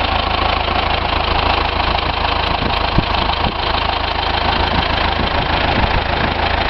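Deutz 6005A tractor's air-cooled four-cylinder diesel engine (F4L 812), freshly overhauled, idling steadily.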